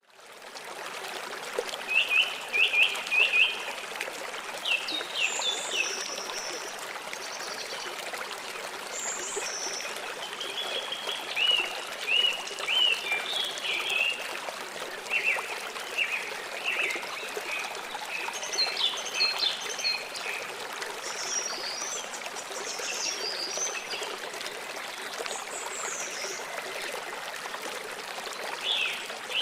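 A small stream running steadily, with several birds calling over it in short, repeated chirps and whistles.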